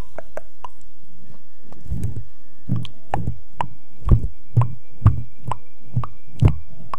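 Close-microphone ASMR handling: a run of soft, deep thumps with sharp clicking edges, about two a second, with lighter taps before them.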